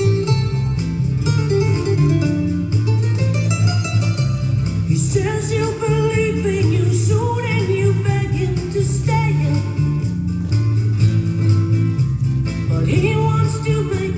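Recorded dance music with a steady beat, plucked guitar and a singing voice that comes in about five seconds in.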